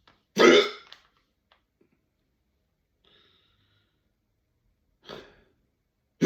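A person's loud, forceful hiccups: a strong, short hiccup about half a second in, a weaker one about five seconds in, and another strong one starting right at the end.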